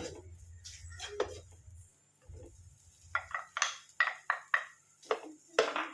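A cooking utensil clinking and scraping against a pan in a quick run of about eight strokes in the second half, as boiled egg yolks are mashed into an onion masala.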